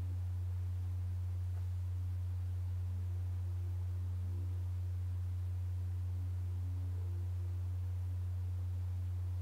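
A steady, unbroken low drone tone, with faint soft higher tones drifting in and out above it: a calm meditation music bed.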